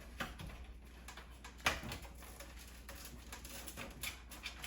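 Light clicks and taps of a cable and parts being handled inside a PC case, with one sharper click a little under two seconds in.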